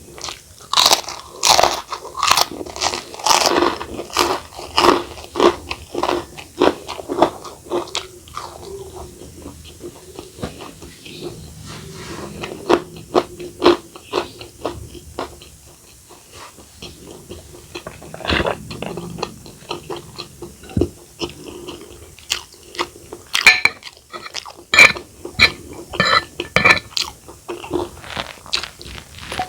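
Close-miked eating: crisp crunching bites and chewing. The crunches come fast and loud at first, ease into quieter chewing for a while, then pick up again near the end.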